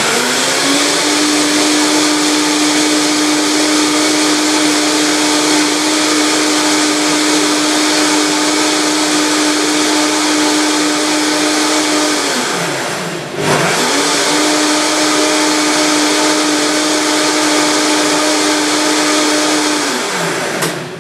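Vitamix blender running steadily, pre-blending kale, medjool dates and water into a green liquid. About twelve seconds in the motor winds down almost to a stop, then spins back up, and it winds down again near the end.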